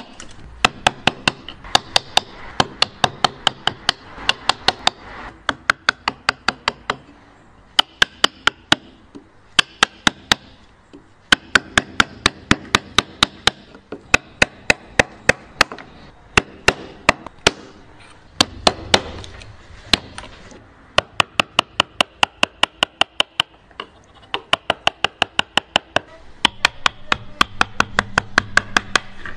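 Wooden mallet striking a bench chisel as it chops into a hardwood joint, sharp knocks coming about four a second in runs of several seconds with short pauses between them.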